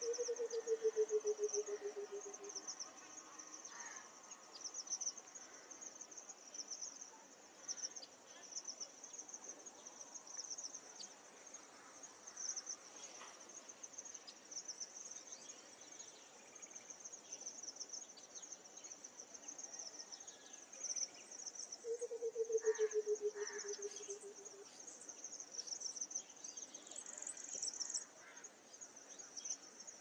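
White-browed coucal calling twice, each call a low, rapid run of hoots that slides down in pitch for about two and a half seconds, one at the start and another about 22 seconds in. Under it runs a steady, pulsing high chirring of insects.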